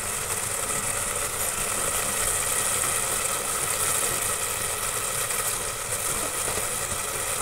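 Tomato masala sizzling and bubbling steadily in a pot on the stove, fried until the oil has separated and risen to the top.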